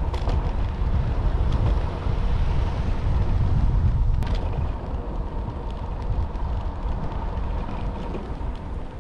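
Wind buffeting and road rumble on a moving GoPro's microphone: a steady low rumble that eases off about halfway through, with a sharp knock just after the start and another about four seconds in.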